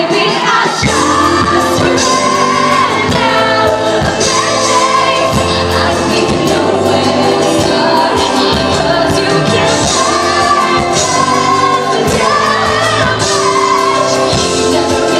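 A woman singing a pop ballad live with a backing band, amplified through a large hall's sound system. The bass and drums come in about a second in under her sustained vocal line.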